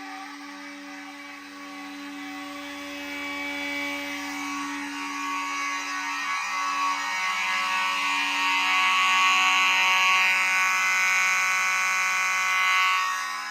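Fire alarm notification appliances sounding a steady, continuous alarm tone during a system test. It grows louder over the second half and drops off just before the end.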